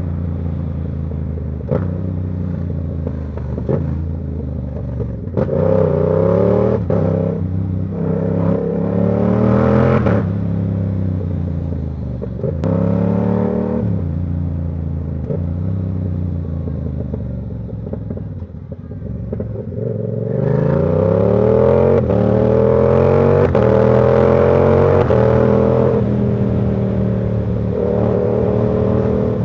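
Yamaha R7's 689 cc parallel-twin engine under way, its revs climbing and dropping again and again through gear changes. About twenty seconds in it gets louder in a long, hard pull through the gears.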